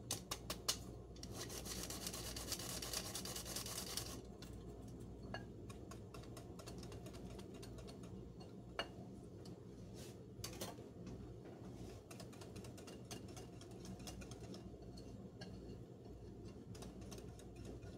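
Hand-crank tin flour sifter being turned over a bowl: faint, rapid clicking and rasping for about the first four seconds, then only sparse soft clicks and taps.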